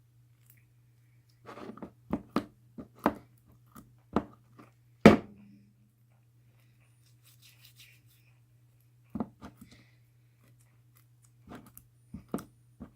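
Very sticky slime being pulled and pressed into its container: a string of short, sharp sticky clicks and pops, the loudest just after five seconds in, then more in two clusters near the end. A steady low electrical hum runs underneath.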